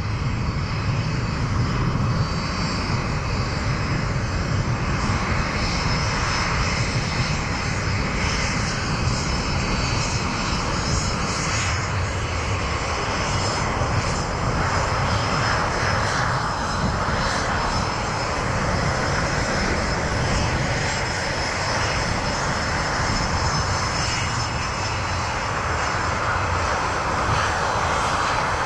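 Military jet aircraft engines running: a steady rushing noise with a thin high-pitched whine on top, swelling and easing slowly.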